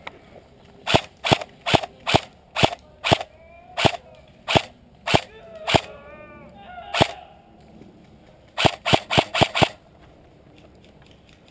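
Airsoft rifle firing single shots, a sharp snap roughly every half second, about eleven in all, then a quick string of about six shots near the end.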